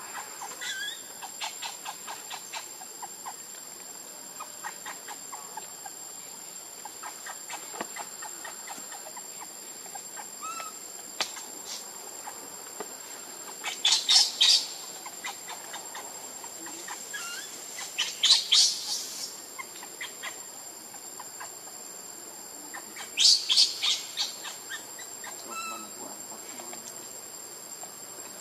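Outdoor ambience of a steady high insect drone with scattered faint chirps and clicks, broken three times by loud bursts of rapid, high chattering calls about a second long each: near the middle, a few seconds later, and again a few seconds after that.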